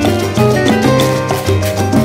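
Loud music with a steady beat and percussion, melody notes changing in steps.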